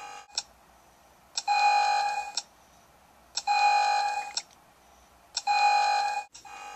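Electronic countdown alarm beeping: three long, steady, loud tones about two seconds apart, with fainter short beeps between them, signalling that the countdown clock has run out before the button is pushed.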